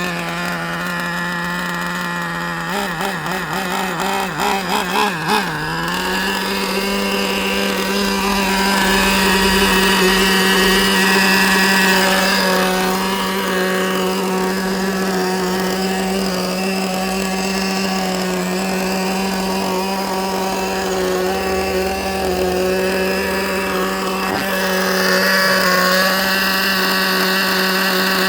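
Traxxas Slayer nitro RC truck's small glow engine running steadily during break-in, its needles set rich at about 70 percent. A few seconds in the pitch wavers up and down quickly several times, then it settles and holds a slightly higher steady pitch.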